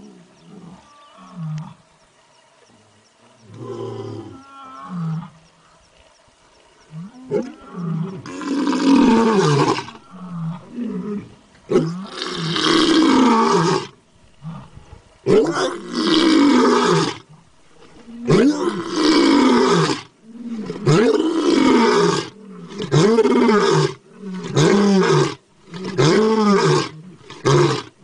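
Bengal tiger roaring: a few faint calls, then from about seven seconds in a series of loud, long calls that rise and fall in pitch, each lasting one to two seconds and coming closer together near the end.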